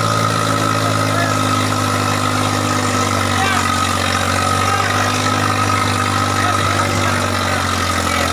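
Eicher tractor's diesel engine running steadily while pulling a heavy load, with crowd voices around it.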